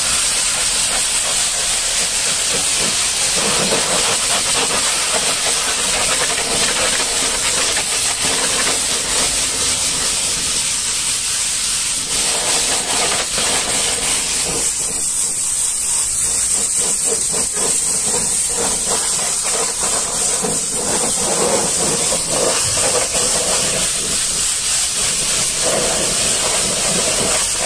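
Pressure washer jet hissing steadily as high-pressure water blasts against a truck's tyre and wheel rim.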